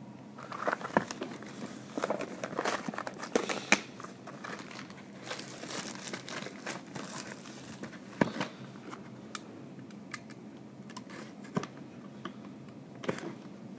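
Wrapper of a trading-card pack being crinkled and torn open by hand, in uneven bursts of crackling through the first half, then scattered rustles and clicks.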